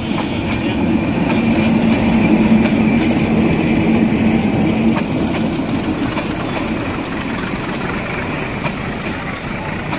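Diesel locomotive of a passenger train passing close by, its engine drone loudest about two to three seconds in, then easing off as the coaches roll past.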